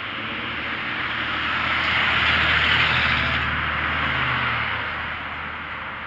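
A car driving past close by: tyre and engine noise swells to a peak a few seconds in and then fades away, over a steady low rumble.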